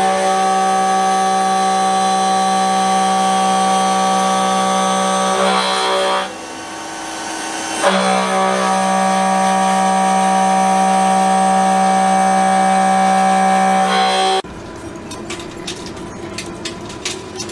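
Machine tool running with a steady whining hum that stops about six seconds in and starts again a moment later. Near the end it gives way to a quieter, rattling mechanical noise with sharp clicks.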